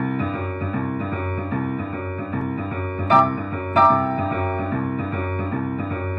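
Yamaha upright piano playing boogie woogie: a steady rolling left-hand bass figure under right-hand chords. Two louder, bright treble chords are struck a little over three seconds in, in quick succession.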